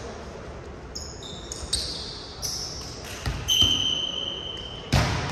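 Sneakers squeaking on a gym floor in short high squeals over several seconds, with a ball struck a few times. The loudest hit comes near the end.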